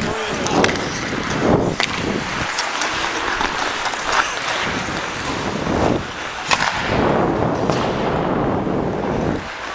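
Ice skate blades scraping and carving the ice, under rushing wind on the microphone of a camera worn by a skating player, with scattered sharp clicks.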